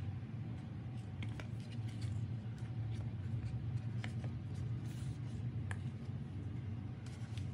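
Faint, scattered light taps and rustles of sandals being handled on a wooden floor, over a steady low hum.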